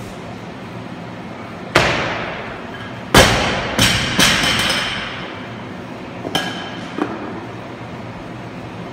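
A loaded Olympic barbell with bumper plates is dropped onto a gym lifting platform. A loud bang with ringing comes about two seconds in, then a bigger bang about three seconds in, followed by quick bounces with metal plates clanking. Two lighter knocks come near the seven-second mark as the rolling bar is stopped.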